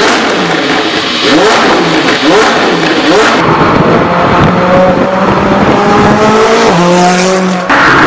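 McLaren 570S twin-turbo V8 through catalyst replacement pipes: about three quick throttle blips, each a short rising rev. Then the engine pulls under acceleration with its pitch climbing steadily, and the sound cuts off sharply just before the end.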